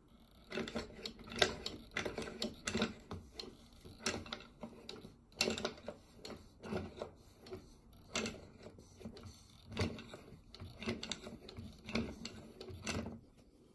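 Hand-cranked wooden pelican automaton clicking and knocking as its crank turns the mechanism that works the head and beak: a quick, uneven run of wooden clacks, about three a second.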